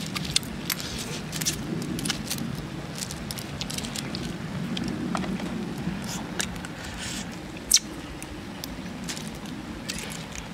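Eating river snails with chopsticks: a string of short, sharp clicks and crackles as shells tap the chopsticks and are sucked and bitten open, with one louder click a little before the eight-second mark.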